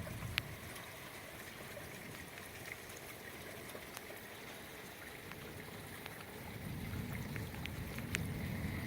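Steady rush of running floodwater. Wind buffets the microphone with a low rumble over the last couple of seconds.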